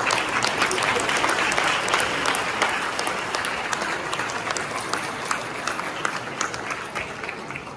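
A large audience clapping, a dense crackle of many hands that thins out near the end.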